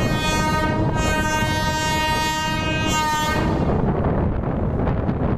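An Indian Railways WAG-7 electric locomotive sounds its horn in one long, steady blast of about three seconds as it approaches. The horn stops, leaving low rumbling wind noise on the microphone.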